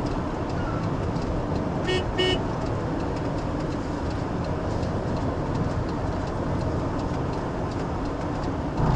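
Steady road and engine noise inside a moving car's cabin. About two seconds in a car horn gives two quick toots, and there is a brief low thump right at the end.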